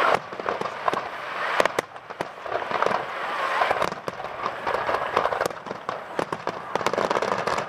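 Fireworks display: aerial shells bursting with many sharp bangs at irregular intervals over a continuous crackling.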